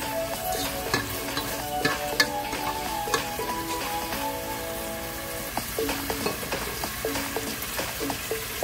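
Sliced bell pepper and onion sizzling in sauce in a pot while a plastic pasta server stirs them, scraping and clicking against the pot now and then. Background music plays underneath.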